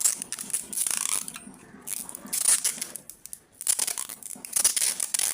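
Adhesive tape being pulled off its roll and wrapped over twisted wire joints, in uneven crackling, tearing pulls with short pauses between them.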